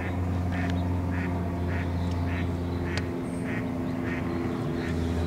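A duck quacking over and over, short calls coming at an even pace about every half second until about four seconds in, over a steady low hum.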